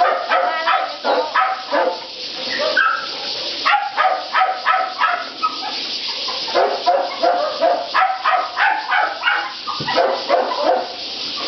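Dogs barking repeatedly in quick runs of short barks, with some yips mixed in.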